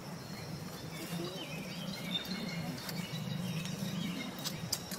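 Faint bird chirps over a steady low hum of outdoor background, with a few light clicks near the end.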